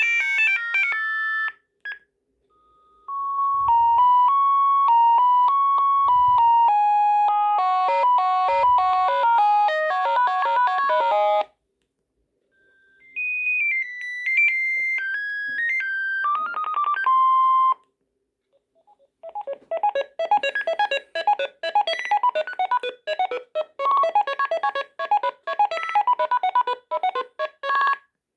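Sagem MW 3020 mobile phone playing its built-in ringtones one after another through its small speaker. A tune ends about a second in; a melody of clear electronic beeping notes follows from about three to eleven seconds, a shorter one from about thirteen to eighteen seconds, and a faster, busier tune of rapid notes from about nineteen seconds on.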